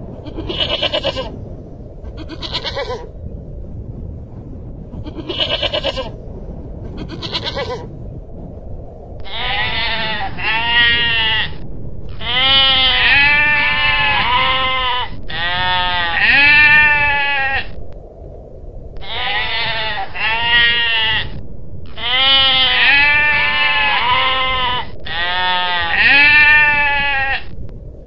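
Long-tailed goral bleating: two pairs of short calls in the first several seconds, then from about nine seconds in a long run of bleats, mostly in close pairs, each rising and falling in pitch, over a steady background hiss.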